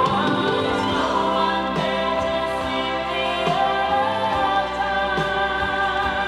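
Music with choral singing, played from a vinyl record through a hi-fi system.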